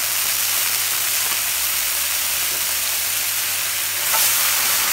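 Daikon and carrot sticks sizzling in hot sesame oil in a frying pan as mentsuyu is poured in for a kinpira-style stir-fry; the steady sizzle swells about four seconds in as steam rises from the pan.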